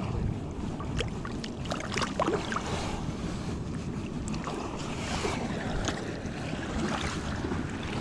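Steady rushing noise of wind on the microphone and river water, with scattered small clicks and taps.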